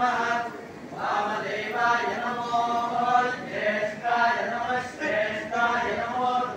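Group of men chanting Vedic mantras in unison, each syllable held on a steady pitch for about half a second before the next.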